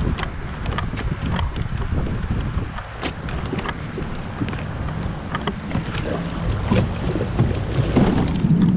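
Fishing kayak being hauled over pavement: a steady low rumble with scattered clicks and knocks, and wind on the microphone. The rumble grows heavier near the end.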